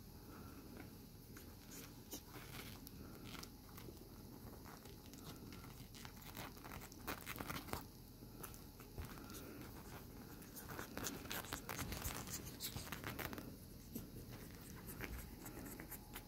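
Faint rustling and scratching of a cotton bedsheet as a hand rolls and handles a two-week-old puppy on it, with scattered small clicks, busiest in the middle.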